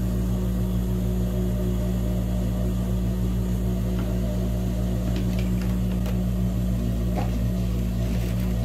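Juki industrial sewing machine running with a steady low hum.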